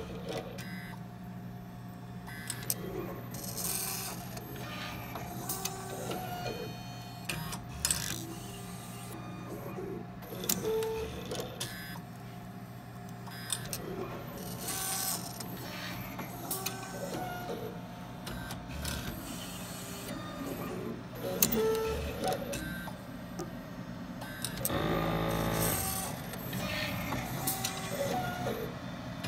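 Leica CV5030 automated glass coverslipper running through its cycle: a steady machine hum, with repeated clicks, brief hissing bursts and short motor whirs as its slide gripper and transport move. Near the end a longer, louder motor whir.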